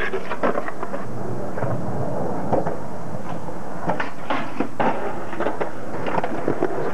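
Skateboard wheels rolling on concrete, with sharp clacks of the board popping, hitting coping and ledges, and landing several times.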